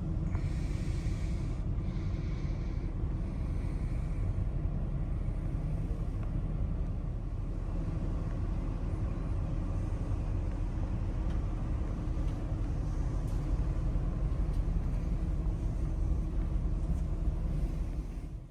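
Steady low rumbling noise with no voices, cutting off suddenly at the end.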